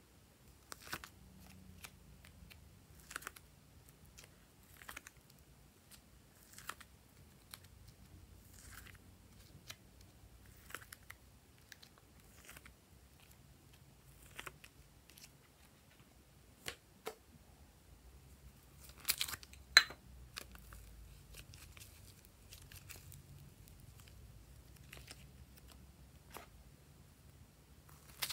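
Fingers handling a plastic sectioned container and peeling modelling clay out of it: faint, sparse clicks and small tearing sounds every second or two, with a louder cluster of clicks a little over two-thirds of the way through.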